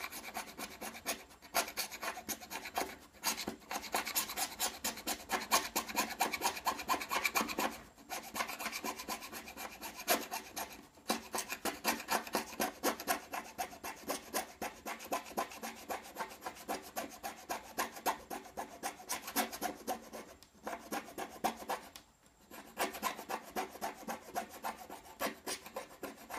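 White solder mask being scraped off an aluminium-base metal clad PCB to expose the dielectric layer: quick repeated rasping strokes with short breaks now and then.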